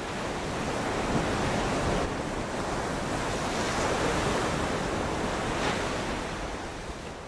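Steady rushing noise of ocean surf, swelling gently every second or two and fading out near the end.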